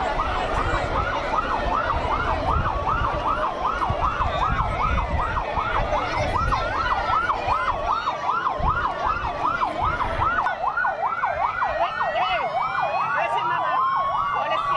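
Ambulance sirens: a fast yelp sweeping up and down about three to four times a second over a slower wail that rises and falls, with more wailing tones joining in the second half, over a low rumble.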